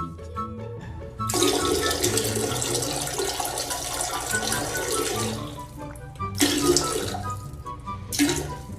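Running water, a steady rush for about four seconds, then three short splashing bursts, over background music.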